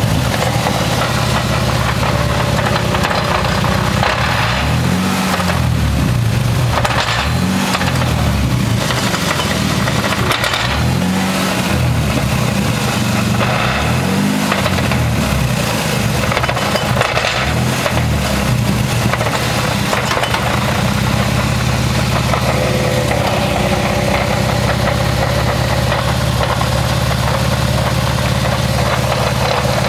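1994 Toyota Supra twin-turbo running, its engine pitch rising and falling several times in the first half, then holding steady. The car carries a driveline noise that the owner traced to a bad rear wheel bearing.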